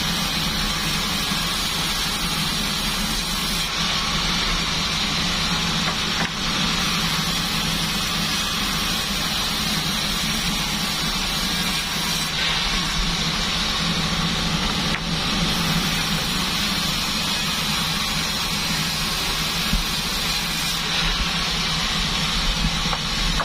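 Band sawmill running steadily, its blade cutting durian wood, a low machine hum under a bright hiss; the highest part of the hiss eases for a couple of seconds three times, about eight seconds apart.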